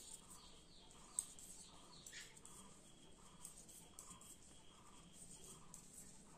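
Near silence: faint room tone with soft ticks of plastic knitting needles working wool, one a little sharper about a second in.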